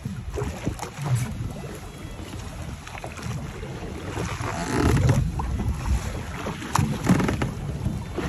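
Wind buffeting the microphone, with water washing around a small boat at sea. The rumble swells for a moment about five seconds in.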